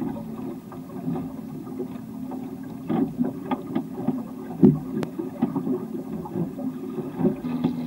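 Water lapping and slapping against the hull of a small sharpie sailboat under sail, in irregular short splashes, with one sharper knock a little past halfway.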